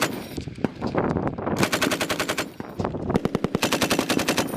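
Machine-gun fire in rapid bursts of shots: a short tail of one burst right at the start, a burst of under a second about a second and a half in, and a longer burst from about three seconds in.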